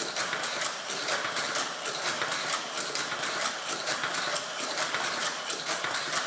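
Battery-powered Hot Wheels Power Booster running, its motor whirring steadily with fast, even clicking at several per second.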